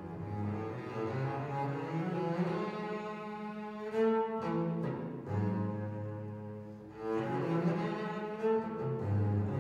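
Double bass played with the bow: a melodic line of sustained notes that swells louder about four seconds in and again about seven seconds in.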